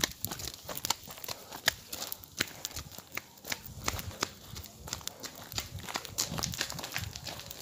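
Footsteps of people walking on a dirt road: an irregular run of short, sharp clicks and scuffs from sandals striking the ground.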